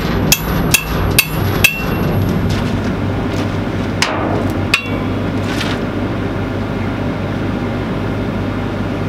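Hammer tapping on a steel pipe flange during fit-up: five quick, ringing metallic strikes in the first two seconds, then a few more spaced-out taps around four to five seconds in, over a steady low hum.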